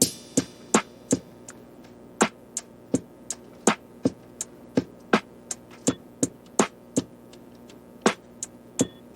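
Background music: a sparse beat of sharp, clicky drum-machine hits, about two to three a second, that starts suddenly over a faint steady hum.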